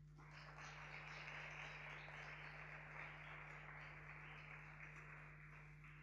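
Faint audience applause that starts just after a lecture ends, swells, then slowly fades, over a steady low electrical hum.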